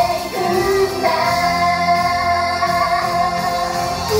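Japanese female idol group singing live into microphones over pop accompaniment, with one long sung note held from about a second in until near the end.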